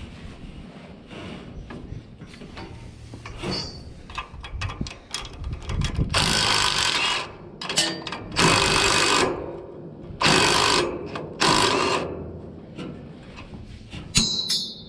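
Handheld power tool run in four short bursts of about a second each, with quieter metal clatter before them: fasteners being taken off a baler.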